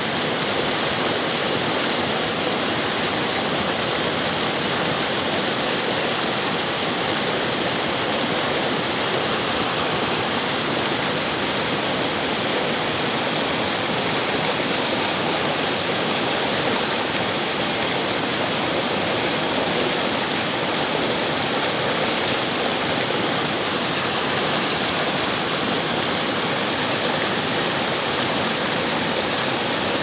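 River water flowing with a steady, even rush.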